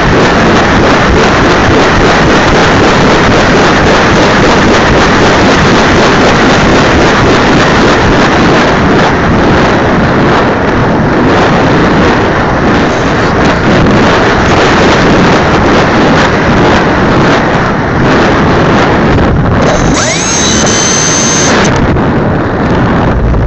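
RC trainer plane's engine and propeller running, with wind rushing over the cowl-mounted camera's microphone: a loud, steady noise. Near the end a high whine rises briefly.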